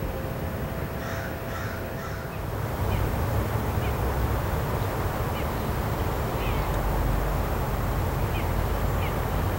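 A crow caws three times in the first two seconds. After that a louder steady rushing noise sets in, with small birds giving short chirps every second or so.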